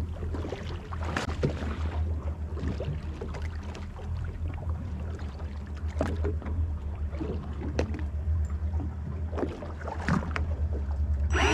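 Twin Mercury Verado V8 outboards idling, a low steady hum, with small water slaps and knocks against the hull. Right at the end an electric fishing reel's motor starts up with a whine.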